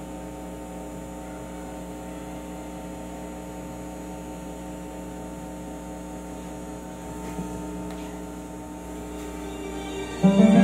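Steady electrical hum from a microphone and amplifier sound system, unchanging for several seconds. Loud music starts abruptly just before the end.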